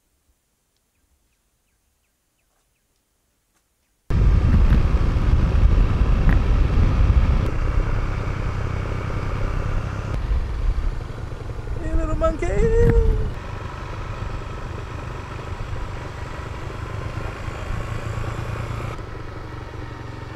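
Near silence for about four seconds, then a sudden loud rush of wind buffeting the microphone over the engine of a moving road vehicle. About twelve seconds in a short rising-and-falling tone sounds over it.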